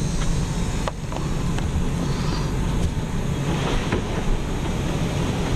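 Steady low rumble and road noise, as heard from inside a moving car, with a few faint clicks.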